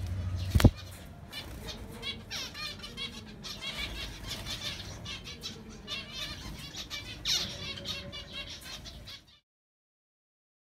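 Pied zebra finches calling: many quick, high chirps overlapping, which cut off abruptly about nine seconds in. A single sharp click, the loudest sound, comes just before the calls start.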